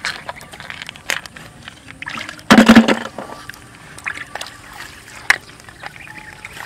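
Hands sloshing and splashing in shallow muddy water while picking up freshwater snails, with small clicks and knocks from the wet shells. A louder splash comes about two and a half seconds in, and a sharp knock a few seconds later.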